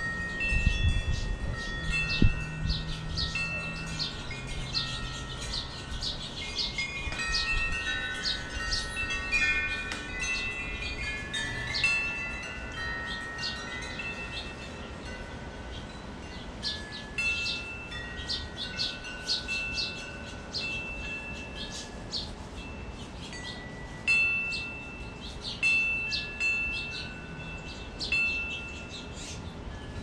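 Wind chimes ringing in the breeze, many overlapping bell-like tones that strike and fade at random, with short bird chirps among them. A low rumble of wind sits under the first few seconds.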